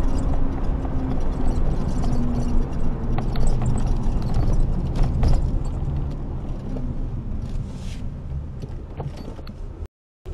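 Car interior driving noise: a steady low rumble of engine and tyres on the road, with occasional small rattles and clicks. It eases off somewhat in the second half and cuts out abruptly near the end.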